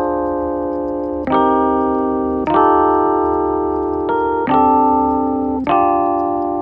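Background music: a piano-like keyboard playing slow held chords, with a new chord struck every second or two and fading until the next.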